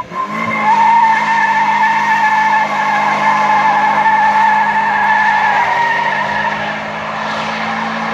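Car doing donuts on asphalt: the tyres squeal continuously while the engine is held at steady high revs. The sound eases slightly about seven seconds in.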